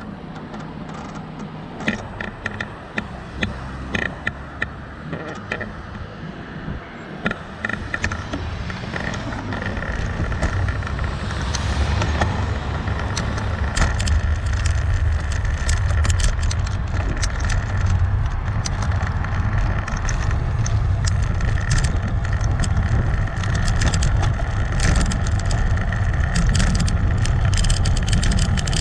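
Wind rushing over an action camera's microphone on a moving bicycle. It builds over the first dozen seconds, then stays strong and steady. Frequent sharp clicks and rattles run through it.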